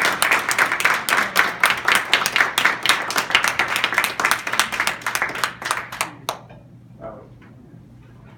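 A small group of people applauding, quick hand claps that stop fairly abruptly a little over six seconds in.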